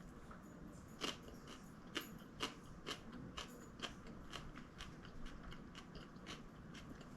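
A person chewing a bite of a bacon-topped jalapeno popper: faint, irregular crunching clicks, a sharp one or two every second.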